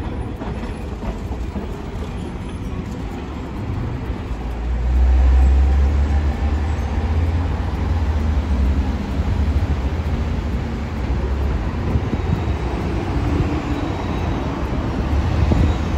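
A Hiroshima Electric Railway Green Mover articulated tram runs over the curved junction track, then street traffic takes over. From about five seconds in, a louder low rumble from passing buses and cars dominates.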